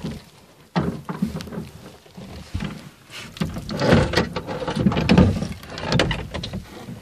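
Wooden rowboat being rowed: the oars knock and creak in their metal oarlocks, with water splashing around the blades. It is louder and busier in the second half, with a few sharp knocks before that.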